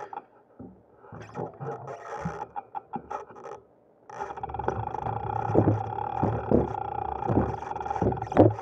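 Bicycle wheeled slowly across a railway footpath crossing, with scattered knocks and rattles as it rolls over the rails and crossing panels up to the gate, the loudest knock near the end. A steady humming tone runs underneath from about halfway through.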